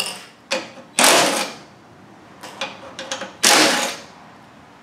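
Cordless drill-driver run in short bursts to back out bolts, two longer half-second runs standing out, with light clicks and metal rattles between them.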